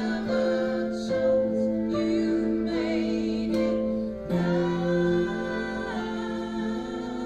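Live acoustic band playing a slow ballad: a woman and a man singing together over acoustic guitars, with violin and cello playing long held notes.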